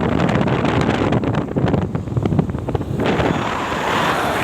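Wind buffeting the microphone: a loud low rumble with crackling gusts, changing to a rougher hiss about three seconds in.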